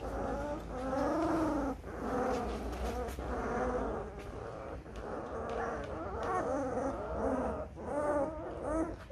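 Litter of Turkmen alabai (Central Asian shepherd) puppies about 19 days old whimpering and whining, many soft overlapping cries with short breaks between them.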